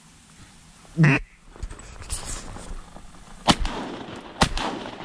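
A single loud duck quack about a second in, then two shotgun shots a little under a second apart, each ringing out after the blast.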